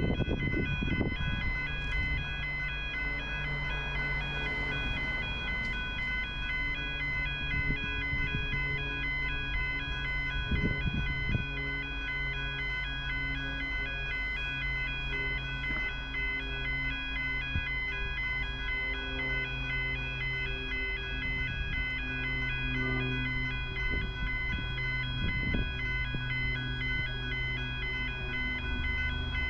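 Railway level crossing warning alarm sounding: an electronic signal alternating rapidly and steadily between two tones, over a low hum.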